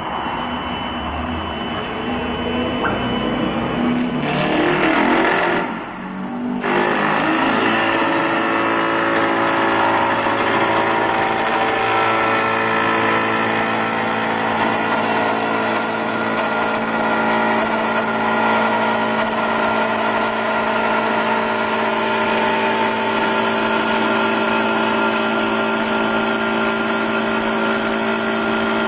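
CNC wood-turning lathe running, its motors whining. The pitch shifts for the first few seconds, the sound dips briefly about six seconds in, then settles into a steady whine of several tones.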